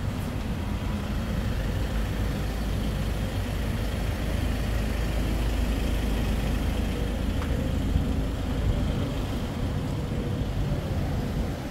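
Steady road traffic noise: a continuous low rumble of vehicles.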